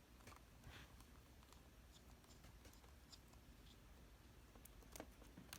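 Faint, sparse clicks and scratches of a small screwdriver turning out the tiny screws that hold a laptop's display, over near-silent room tone.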